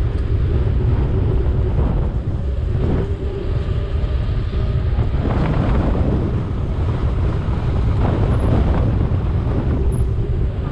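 Wind rushing over a GoPro action camera's microphone on a moving bicycle, a steady low rumble, with city car traffic driving past alongside.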